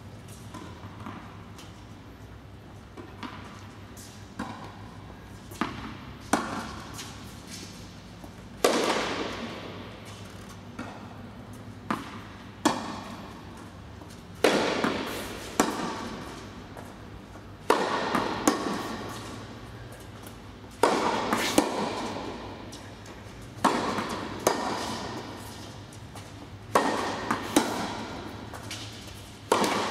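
Tennis rally on an indoor court: sharp pops of racket strings hitting the ball, each followed by a short echo off the hall, with fainter knocks in between. The hits come every few seconds and grow more regular after the first several seconds.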